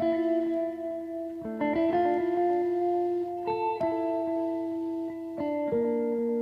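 Background music: slow plucked guitar chords, a new chord struck about every one and a half to two seconds and left to ring.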